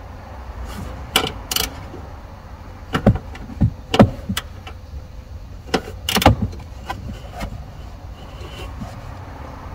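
Sharp metallic clicks and knocks of tools and parts being handled while a car's 12V battery is changed, in irregular clusters, over a steady low rumble.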